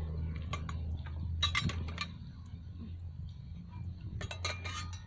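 Light metallic clinks and jingles in short clusters, about a second and a half in and again near the end, over a steady low hum.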